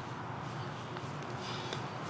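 Quiet, steady background noise with no distinct event; the jackhammer is not running.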